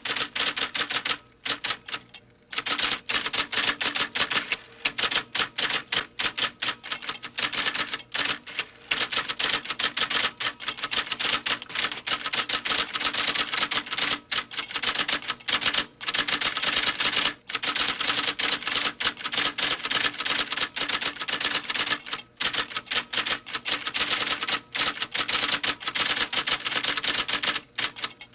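Electric typewriter being typed on fast: a dense, continuous stream of key strikes, broken by brief pauses every few seconds.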